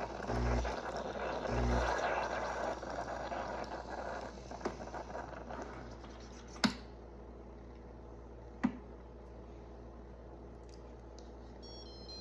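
Pampered Chef Deluxe Coffee Machine brewing: its pump pulses and hisses, then fades out over the first half. Two sharp clicks follow, and a short series of beeps near the end marks the brew finishing.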